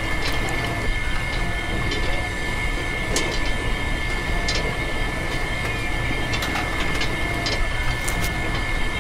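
Small electric motor running steadily with a constant high whine and scattered light clicks.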